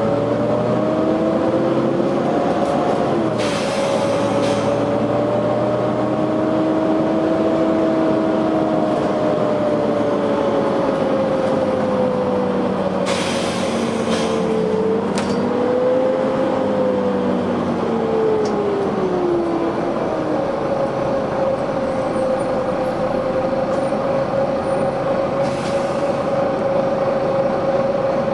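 Volvo B9TL double-decker bus running, a whine from its engine and cooling fan wandering up and down in pitch, then holding steady about two-thirds of the way through. Three short hisses of compressed air come from the bus's air system: a few seconds in, around halfway, and near the end.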